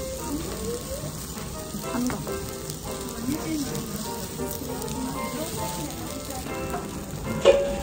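Food sizzling steadily on a hot surface, with a single sharp knock near the end.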